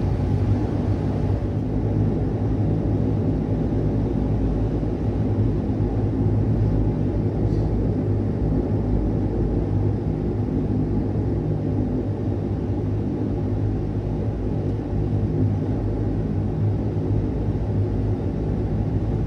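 Steady cabin drone of a Dash 8-100 twin turboprop: a constant engine and propeller hum with a low, even tone, unchanging throughout.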